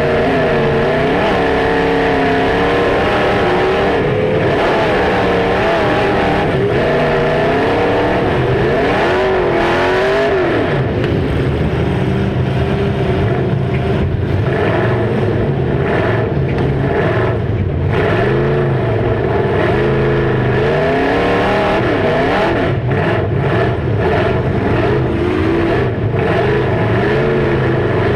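Demolition derby cars' engines revving up and down hard, their pitch rising and falling continuously.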